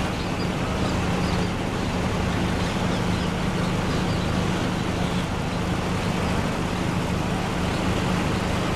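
Steady road-traffic noise with a low, even engine hum.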